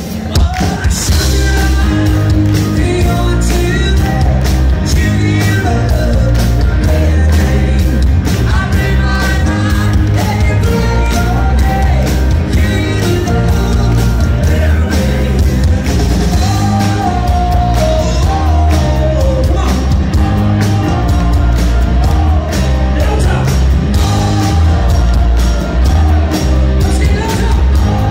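Live rock band playing loudly with a man singing lead over drums, bass and electric guitars, at a steady driving beat.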